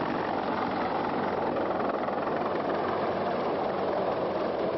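Steady engine and machinery noise with a faint low hum and no distinct events.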